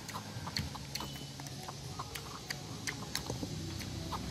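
Two baby macaques sucking milk from plastic bottles: scattered small wet clicks and smacks at irregular intervals, over a faint low hum.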